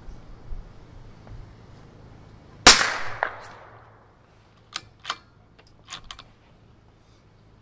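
A single rifle shot fired from a scoped, bipod-mounted rifle at a long-range steel gong; the report echoes and dies away over about a second, with a second short crack half a second after it. A couple of seconds later the rifle's bolt is worked, giving four sharp metallic clicks.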